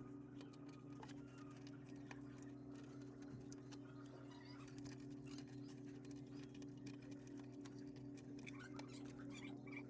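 Faint steady low hum with scattered faint clicks and ticks.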